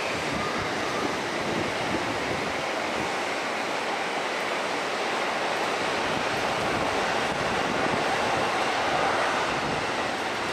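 Train rolling past on the tracks: a steady rushing noise of wheels on rail that swells slightly about eight seconds in, then eases.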